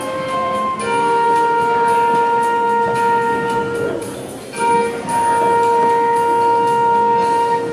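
Flute and clarinet duet playing a few short notes, then holding two long notes together, with a brief break about four seconds in. These are the closing held notes of the piece.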